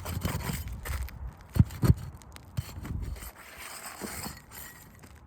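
Asphalt roofing shingle being handled and scraped on the roof, with two dull knocks about one and a half to two seconds in and a softer scraping later on.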